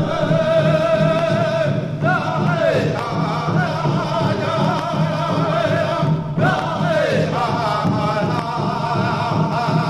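Background music: a sung melody held on long, wavering notes that slide down twice, over a low steady accompaniment.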